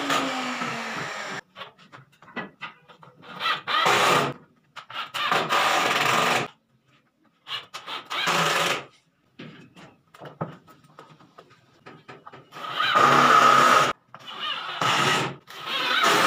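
Cordless drill running against a wooden pool-table rail in about five short runs, each starting and stopping abruptly, with small clicks and knocks of handling between.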